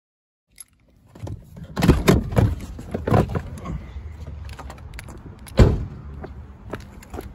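Phone camera being handled and carried beside a car, with a cluster of knocks about two to three and a half seconds in and one heavy thump about five and a half seconds in, over a low steady rumble.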